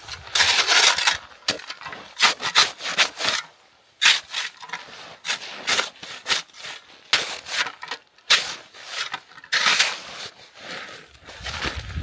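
Firm, freshly frozen snow crunching and scraping as it is worked, in short irregular bursts with sharp clicks.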